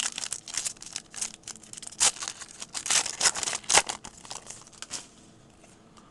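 Foil trading-card pack being torn open and its wrapper crinkled: a rapid, irregular run of crackles that stops about five seconds in.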